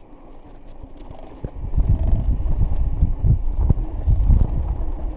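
Mountain bike riding over sandstone slickrock: a low rumble of wind buffeting the microphone and tyres on rock, with knocks and rattles from the bike, growing louder about a second and a half in.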